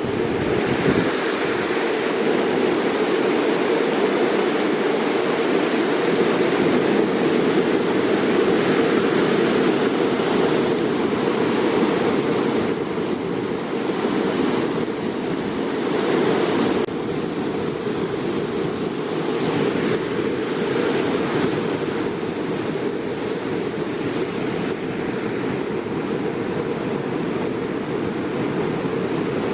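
Waterfall rushing: a loud, steady noise, heaviest in the low range.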